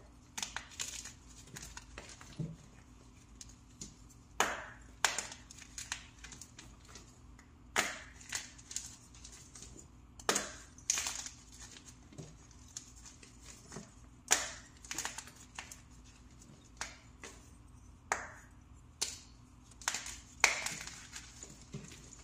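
Pressed powder blocks being crushed by hand: a series of dry, sharp crunches at irregular intervals, some trailing into a brief crumble, with the loudest a little past halfway and near the end.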